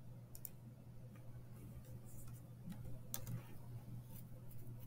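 Faint, scattered clicks of a computer mouse and keyboard as a value is typed in and entered, over a steady low electrical hum.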